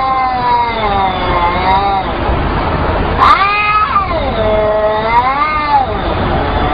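Cats in a face-off yowling, two long drawn-out wavering calls that rise and fall in pitch: one trails off about two seconds in, and the next starts about three seconds in and lasts nearly three seconds. This is the threatening yowl of a cat confrontation.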